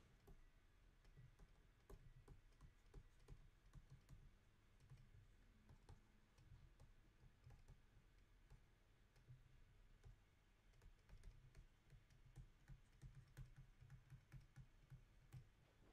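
Faint, irregular tapping and clicking of a stylus writing by hand on a tablet's glass screen, a few taps a second, over a low room rumble.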